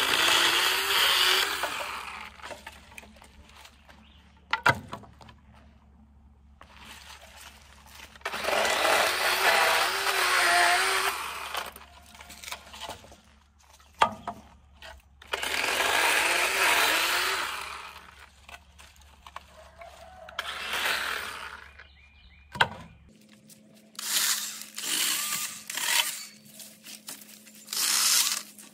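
A power tool shredding material for mulch, run in bursts of a few seconds with quiet pauses between. There are four longer runs, then several shorter ones near the end, and a few sharp clicks in the pauses.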